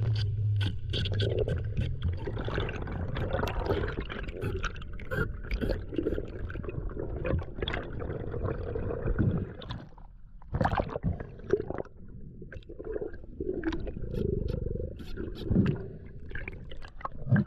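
Underwater noise picked up by a submerged camera: water rushing and scraping, with many sharp clicks throughout. It gets quieter about ten seconds in, with occasional louder surges.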